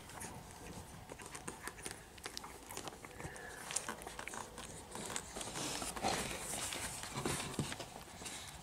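Two-week-old beagle puppies suckling at their mother: a soft, irregular run of small clicks and smacks, with the rustle of fur as they push in at the teats.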